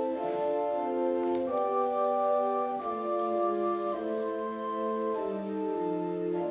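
Church organ playing offertory music: slow, held chords that change about once a second, each note sounding at an even level without dying away.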